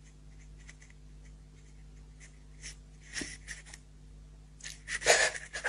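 A woman crying quietly into her hand: faint sniffs and breaths, with louder breaths near the end.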